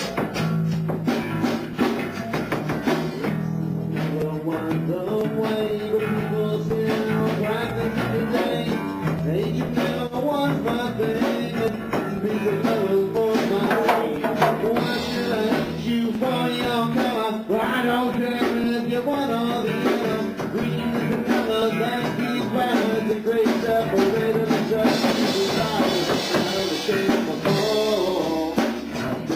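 Three-piece rock band playing: drum kit, bass and guitar, with a steady beat.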